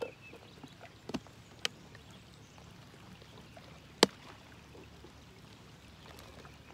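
Small sharp clicks and taps from handling fishing gear and a bait cup at the water's edge, one much louder than the rest about four seconds in, over a faint steady outdoor background.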